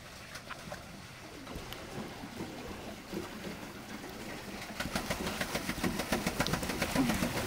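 Pedal-powered paddle boat moving on the water: the paddle wheel churns and splashes, with many quick clicks and knocks. The sound grows louder about five seconds in.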